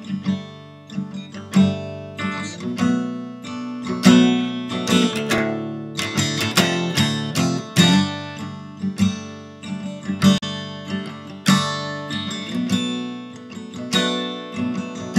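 Acoustic guitar music: chords strummed and plucked at an even pace, each one ringing out and fading before the next.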